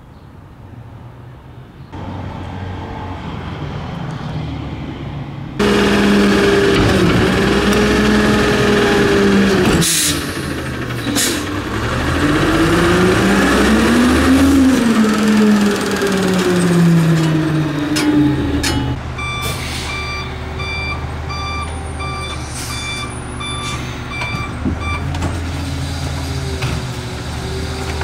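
Rear-loader garbage truck: its diesel engine revs up and falls back as the packer works, with a couple of sharp bursts about ten seconds in. In the second half the truck's reversing alarm beeps steadily for several seconds.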